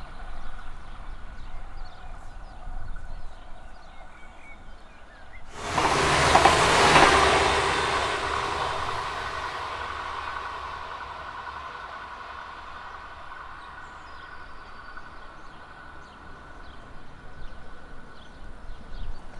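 A train passing close by at speed. It arrives with a sudden rush of noise about five seconds in, is loudest for a second or two, then fades slowly as it moves away, leaving a steady tone that dies out gradually.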